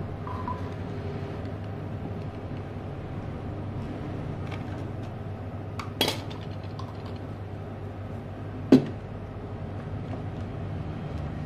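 Two sharp clinks of tools and objects being set down on a workbench, one about halfway through and a louder one a few seconds later, over a steady low hum.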